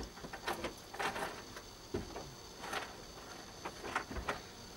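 Irregular rustling, scraping and light knocks from work inside a car, over a steady high insect buzz.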